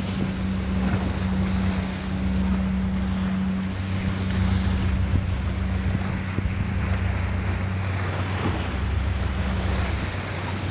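Sea waves washing and splashing against a stone sea wall, with wind buffeting the microphone and a steady low engine hum, likely from a boat.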